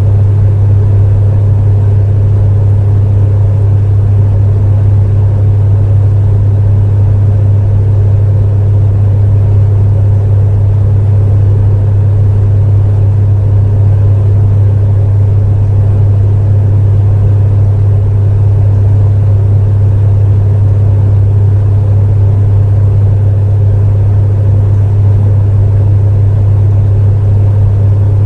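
Space heater running steadily: a constant low hum with a dull rush of fan air over it, and little hiss up high.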